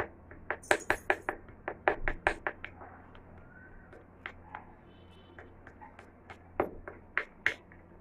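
Metal spoon clinking and tapping against a small glass bowl while stirring turmeric powder into honey. Quick repeated taps for the first two or three seconds, a few scattered ones in the middle, then another short run near the end.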